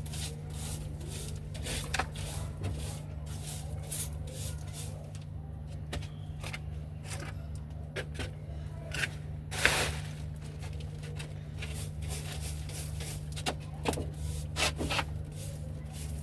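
Broom sweeping: repeated irregular scraping strokes over a steady low hum, with one louder stroke about ten seconds in.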